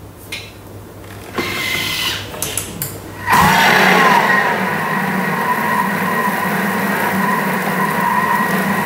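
Thermomix TM6 kitchen machine motor starting about three seconds in and running steadily as it mixes bread-roll dough in its bowl: a low hum with a steady high whine. Before it come a click and a short mechanical whirr.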